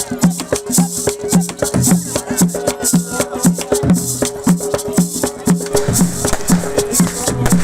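Loud music with a steady beat, about two bass notes a second, and busy percussion.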